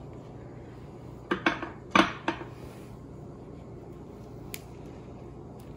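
A few light clinks and taps of a kitchen utensil against a dish, bunched together between about one and two and a half seconds in, with one faint tick later, over a low steady kitchen hum.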